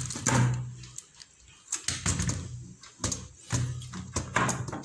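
Small clicks and taps of a wire being bent and fitted to a socket's screw terminal on a wiring board, with a low steady hum twice.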